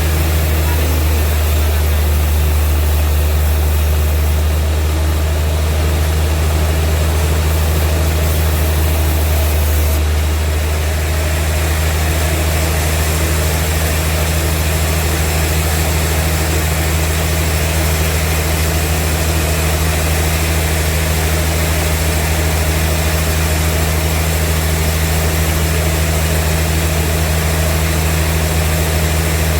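Vintage sawmill machinery running with a steady, loud low drone, unchanged throughout.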